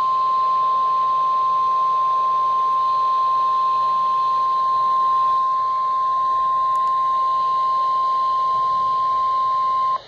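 Weatheradio Canada warning alarm tone through a Midland weather radio's speaker: one steady, unbroken high tone of about 1050 Hz held for about ten seconds, then cut off. It signals that a new or updated weather warning broadcast follows.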